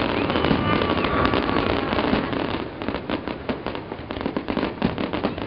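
Aerial fireworks going off: dense, irregular crackling and popping from many small bursts, easing off somewhat in the second half.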